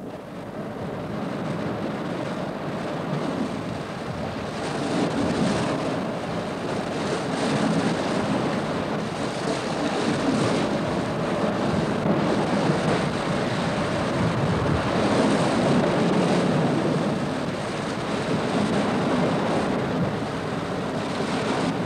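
Sea surf washing onto a sandy beach, with wind blowing across the microphone: a steady rushing noise that swells and eases.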